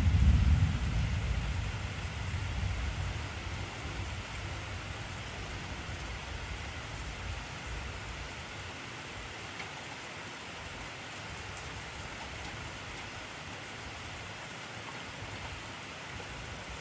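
Steady heavy rain hissing and pattering. A deep thunder rumble dies away under it over the first few seconds.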